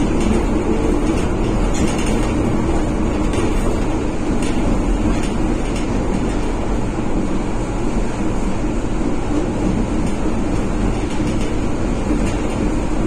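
Inside the passenger car of a 1963 PaFaWag EN57 electric multiple unit under way: a steady rumble of wheels and running gear on the rails, with irregular light clicks from the track in the first half.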